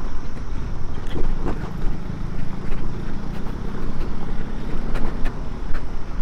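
Aprilia SR150 scooter's engine running steadily while ridden over a rough dirt and gravel road, with wind on the microphone and scattered knocks from the bumpy surface.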